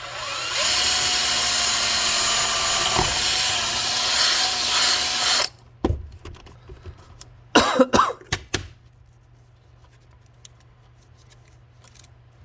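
A handheld power tool runs at steady speed for about five seconds, working metal, then cuts off suddenly. A few short knocks and clatters follow.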